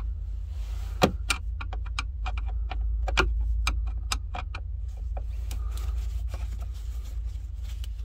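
A Phillips screwdriver turning out a screw under a minivan's dashboard trim: a quick run of small metallic clicks and taps, thickest in the first five seconds, with louder knocks about one and three seconds in, over a steady low hum.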